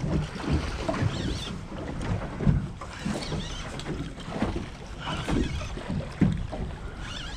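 Small boat rocking at sea, with water slapping irregularly against the hull in low thumps and wind buffeting the microphone.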